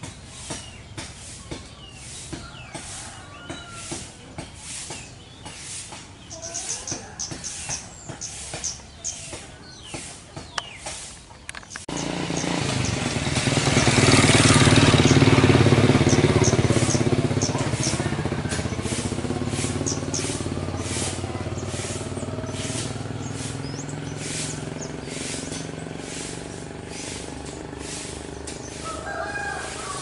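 Wild birds chirping and twittering in the trees. About twelve seconds in, a motor vehicle's engine comes in abruptly, grows loud as it passes, then fades slowly while the birds keep chirping.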